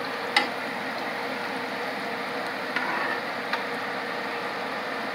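Butter melting in hot olive oil in a frying pan, a steady sizzle. Tongs click against the pan about half a second in and a couple more times around the three-second mark.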